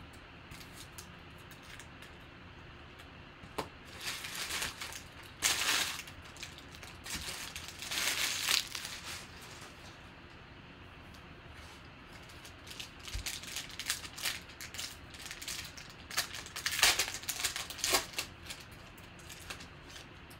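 Foil wrappers of Panini Select football card packs being torn open and crinkled by hand, in several separate bouts of crackling.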